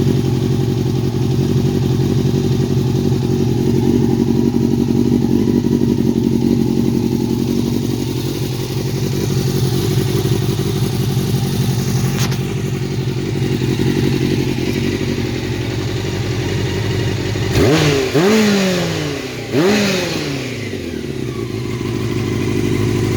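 1989 Honda CBR600 Hurricane's inline-four engine running at a steady idle, after its clogged carburettor jets were cleaned. It is blipped twice near the end, the revs rising quickly and falling back to idle each time.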